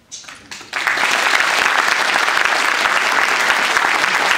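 Audience applauding: a few scattered claps, then full, steady applause from just under a second in.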